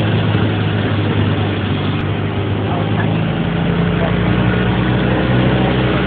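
Jeep engine running steadily at low speed while driving across a grassy field, with a constant noisy hiss over the engine's hum.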